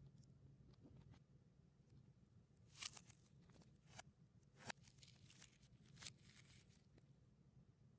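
Faint crinkling and rustling of plastic candy wrappers being handled, played in reverse, with a few short sharp crackles, the loudest about three seconds in.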